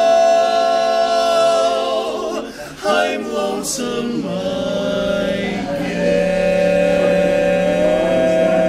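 Male barbershop quartet singing a cappella in close four-part harmony, sustaining one long chord, breaking off briefly about two and a half seconds in, then moving through a few quick notes into another long held chord over a low bass note.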